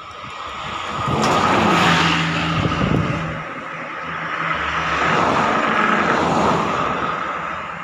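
Buses passing close by on a road, their engine and tyre noise swelling about a second in and again around five seconds, with a steady low engine note under the first pass.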